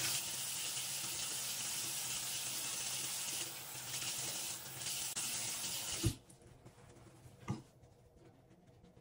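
Water running from a tap into a sink. It stops abruptly with a thump about six seconds in, and a single knock follows a second and a half later.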